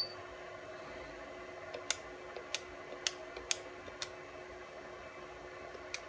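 G-Drive CNC controller panel: a short high beep at the start, then a handful of sharp clicks about half a second apart, over a steady fan-like hum.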